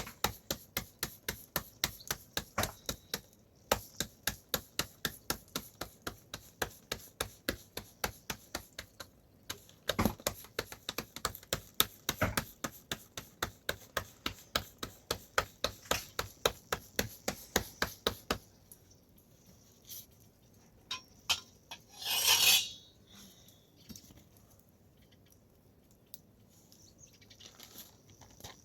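Rhythmic chopping strokes, about three a second, which stop about 18 seconds in; a louder, brief scraping clatter follows a few seconds later.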